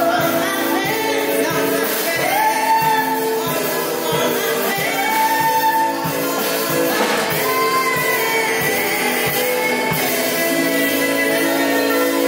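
A woman singing live into a microphone, her notes sliding up into long held tones, over backing music with sustained chords and a steady beat of about two strokes a second.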